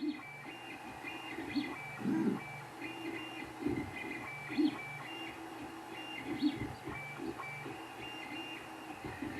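Creality Ender 3 3D printer running a print: its stepper motors whine in short steady tones that keep changing pitch as the print head moves, with a few louder pulses among them.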